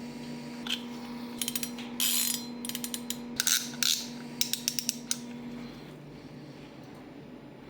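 Shimano Power Aero 14000 XSC spinning reel being handled: clusters of sharp mechanical clicks and ratcheting from the reel's mechanism, stopping about five seconds in.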